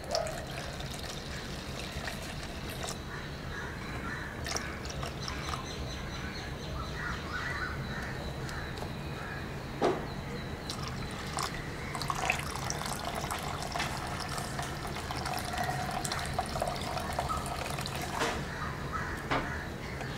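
Muddy water trickling as it is poured slowly off settled red clay slurry from one plastic tub into another, decanting the clear water from the mud. A single sharp knock about ten seconds in.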